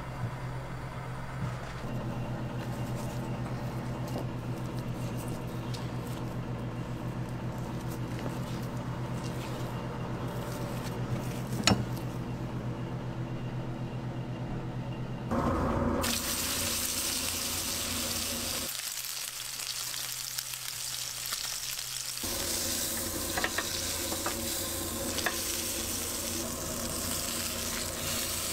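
A steady low hum with one sharp click, then, from a little past halfway, a steak searing in a hot pan: a steady sizzle.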